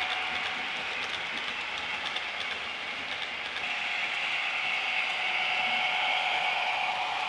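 Hornby Class 66 model locomotive's TTS sound decoder playing a diesel engine sound through its small onboard speaker as the model runs, with the rattle of the wheels on the track. The engine sound grows louder about halfway through.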